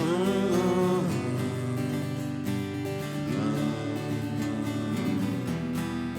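Acoustic guitar strumming with a band playing an instrumental intro, with a melody line that slides up and holds near the start and again about three and a half seconds in.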